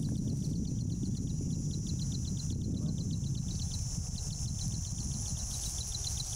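Insects: a quick, even chirping and a steady high hiss, over a continuous low rumble.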